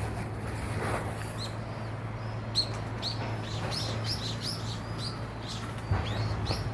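Small birds chirping: a run of short, high chirps that slide downward, a few each second, over a steady low hum.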